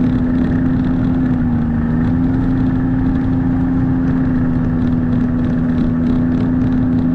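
Snowmobile engine running steadily under way, its pitch dipping slightly about one and a half seconds in and then holding even.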